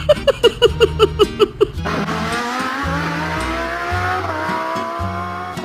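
Edited soundtrack: about eight quick staccato pitched notes a second over a pulsing bass line, then a long whine that climbs steadily in pitch, dips once briefly and climbs again, still over the bass line.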